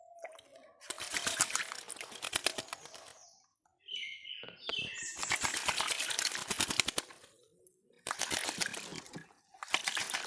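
Myna bathing: four bursts of rapid wing-fluttering and splashing in water, with a short chirp between the first and second bursts.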